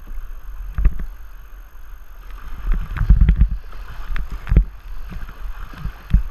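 River water rushing and splashing against a whitewater kayak's hull as it is paddled through current, with paddle strokes in the water. Several dull thumps come through, the loudest about three seconds in.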